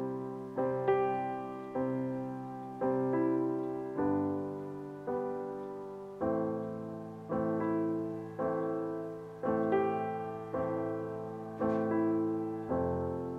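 Soft background piano music: sustained chords struck about once a second, each fading before the next.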